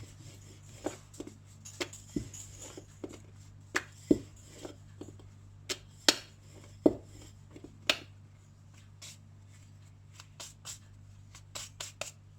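Irregular light knocks and clicks of a wooden rolling pin on a board as a dough wrapper is rolled out thin, over a steady low hum.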